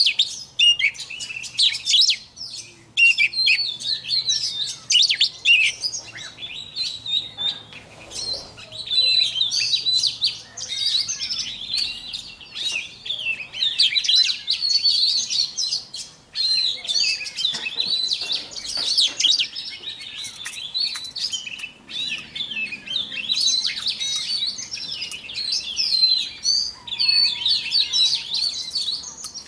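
White-rumped shama singing: a long run of rapid, varied high phrases mixed with clicking notes, broken by a few brief pauses.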